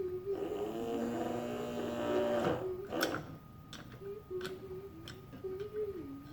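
A voice humming a wavering, tuneless note. For about the first two and a half seconds a dense held chord of several tones sounds with it, and then come several small sharp clicks of parts being handled.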